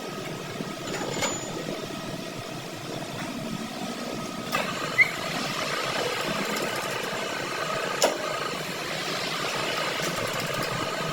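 A workshop machine running with a steady hum, broken by a few sharp clicks or knocks about a second, four and a half seconds and eight seconds in.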